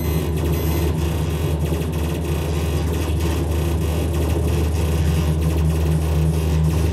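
Experimental electronic music from keyboards and laptops played through loudspeakers: a loud, steady low drone with a noisy, grainy texture above it.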